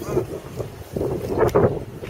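Strong gusting wind buffeting the microphone in an irregular rumble, with a sharp click about a second and a half in.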